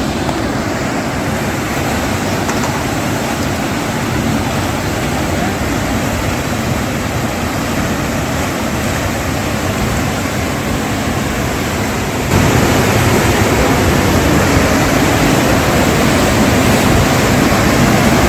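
Whitewater rapids of a fast mountain river rushing over rocks: a loud, steady roar of water that gets suddenly louder about two-thirds of the way through.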